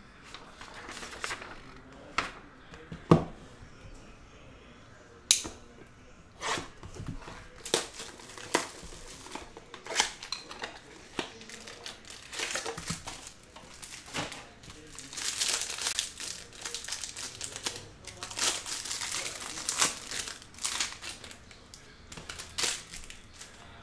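A cardboard sports-card box and its plastic wrapping being opened by hand: crinkling and tearing, with sharp snaps and clicks scattered through. The loudest snaps come a little after three seconds and about five seconds in, and there is a run of dense crinkling later on.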